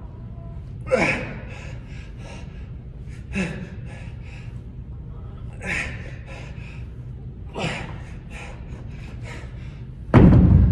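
A man's heavy, forceful exhales, four of them about every two and a half seconds, with each dumbbell thruster rep. Near the end, a loud thud as the pair of heavy dumbbells comes down onto the rubber gym floor.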